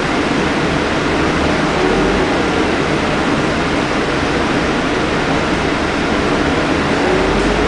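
Scania K310UD double-decker bus under way, heard inside the lower deck: its Scania DC9 nine-litre five-cylinder diesel engine and ZF Ecomat automatic gearbox running as a steady drone over road noise. A faint whine rises in pitch now and then.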